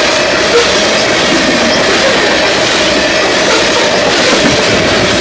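BNSF coal train's hopper cars rolling past close by at a grade crossing: a loud, steady rumble of steel wheels on rail with faint clacks as wheels cross the rail joints, and a faint steady whine above it.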